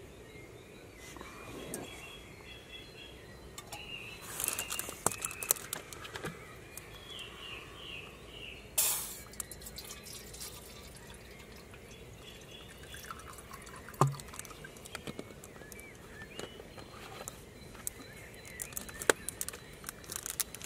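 Water poured and dripping from a plastic bottle into a cooking pot on a gas canister camping stove, with irregular splashes, drips and clicks.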